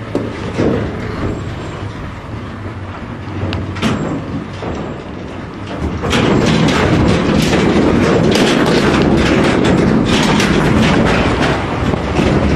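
Cattle lorry's engine running and its slatted metal livestock trailer rattling. About six seconds in it grows much louder into a dense, steady clattering as the lorry pulls away.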